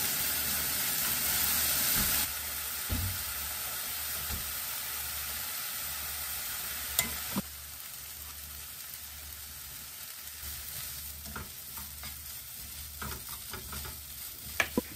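Diced chicken breast and vegetables, then rice, sizzling as they are stir-fried in a nonstick wok over medium heat, with a wooden spatula stirring through them. The sizzle is loudest in the first two seconds and quieter after that, and the spatula's scrapes and taps on the pan come through near the end.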